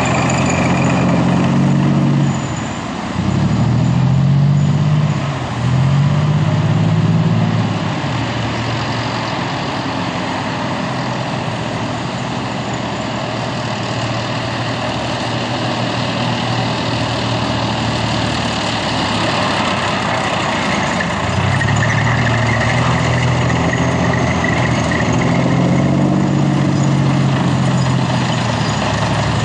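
Convoy of military vehicles passing: Marder tracked infantry fighting vehicles and Fuchs six-wheeled armoured carriers, their heavy diesel engines running continuously. The engine note rises and falls several times in the first few seconds and again in the last third as vehicles pull away.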